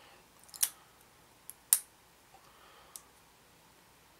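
Four short plastic clicks as a small plastic model-kit exhaust part is handled between the fingers, the loudest a little under two seconds in.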